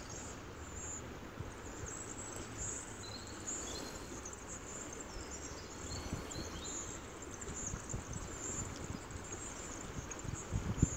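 Shallow river water flowing steadily over a stony bed, with faint short high chirps of insects or birds, and wind buffeting the microphone near the end.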